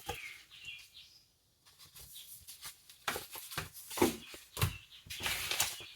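Paper rustling and handling noise, with a dense run of irregular light clicks and crinkles from about two seconds in: planner sticker sheets being sorted through.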